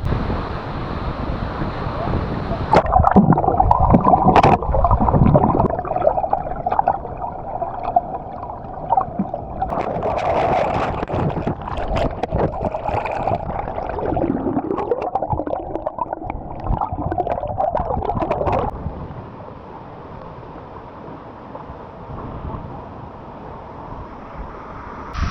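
Waterfall water rushing and gurgling close to the microphone, muffled, with many splashes and sloshes. A little before the end it drops to a quieter, even rush.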